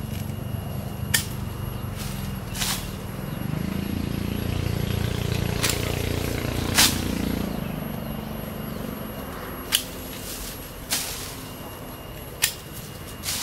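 Hand pruning shears snipping through small lychee twigs: about seven sharp clicks at irregular intervals of a second or two. Between the cuts, leafy branches rustle as they are pulled aside.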